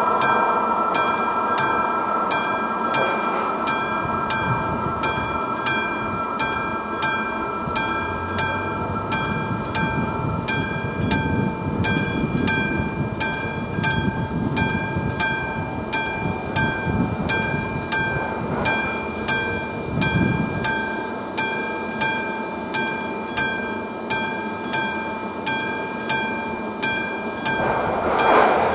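Level-crossing warning bell, the classic electromechanical bell of an AŽD 71 crossing signal, striking evenly about one and a half to two times a second. A low rumble swells and fades in the middle.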